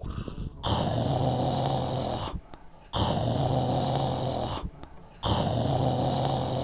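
A dinosaur roar sound, three times, each lasting about a second and a half with short pauses between.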